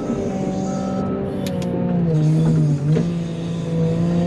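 Wheel loader's diesel engine running steadily, its pitch dipping briefly a little past halfway and then recovering. A reversing alarm beeps once about a second in.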